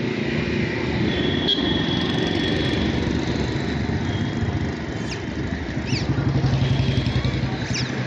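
A motorcycle engine running on the street, over general traffic noise; the engine grows louder and throbs for about a second and a half starting around six seconds in. A few short, high, falling chirps come through near the end.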